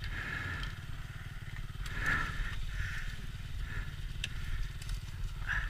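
Dirt bike engine idling with an even low pulse, over faint scraping and rustling as the stuck bike is shifted about in dry leaves.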